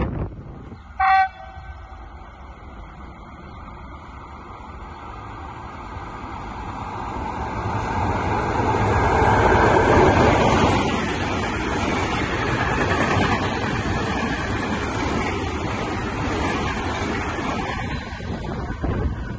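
A short horn toot from an Italian electric locomotive, then its freight train running through. The rolling rumble builds as the locomotive passes, loudest about ten seconds in, and stays steady as the wagons follow.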